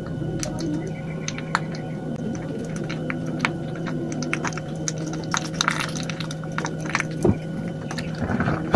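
Gas stove burner running under a tin can of melting hot-glue sticks, with many irregular small crackles and clicks over a steady low hum.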